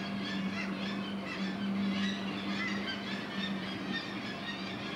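A seabird cliff colony calling, a dense overlapping chorus of short calls, over the steady hum of the boat's engine.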